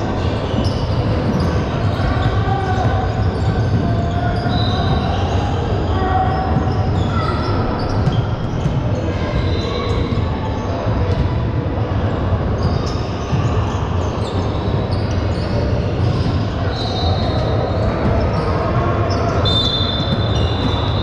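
Basketball game in a large gym: a basketball bouncing on the court over steady crowd chatter. A short, high, steady tone sounds near the end.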